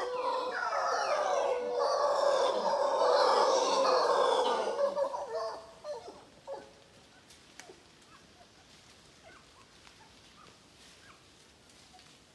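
A dense burst of birds calling over one another for about five and a half seconds, then dropping away to faint scattered chirps.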